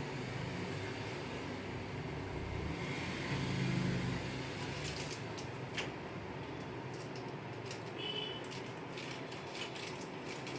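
Steady low room hum, with a soft swell about three to four seconds in and a few faint clicks and rustles in the second half, typical of hands and body shifting on a treatment table.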